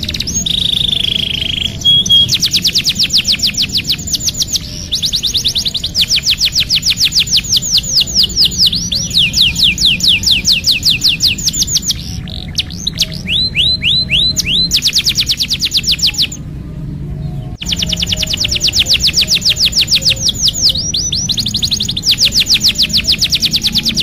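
Domestic canary singing long rolling phrases: very rapid runs of notes, each sweeping down in pitch, in phrases of a few seconds with short breaks and one pause of about a second about two-thirds through.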